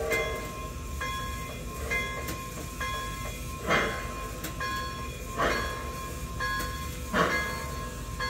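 Sound system of an MTH Premier O-gauge Santa Fe 4-8-4 steam locomotive model, upgraded to Proto-Sound 3: the locomotive bell rings about once a second. A steam chuff comes every second and a half or so as the model creeps forward.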